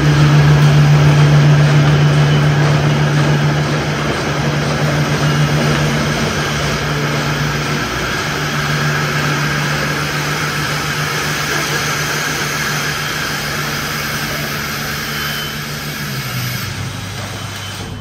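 A machine running with a loud, steady hum, its pitch dropping to a lower, steady note about sixteen seconds in.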